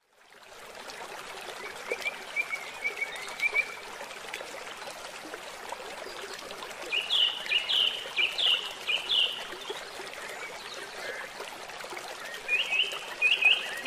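Nature ambience of running water, like a stream, fading in, with a bird calling in short rising chirps: a faint quick run about two seconds in, a louder run around the middle, and another near the end.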